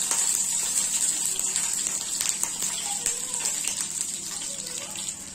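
Curry leaves sizzling and crackling in hot oil with mustard seeds and urad dal in a small steel kadai, a steady hiss that slowly dies down.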